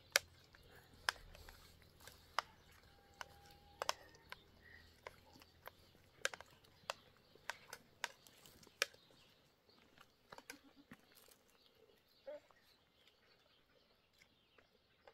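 Faint, irregular clicks and taps, about one a second and thinning out in the second half, from people eating a meal off plates.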